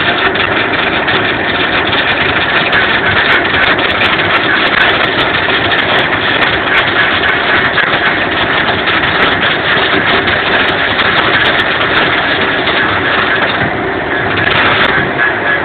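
Electric arc welding overhead on steel: a steady, dense crackle and sizzle of the arc, with spatter flying, that stops near the end.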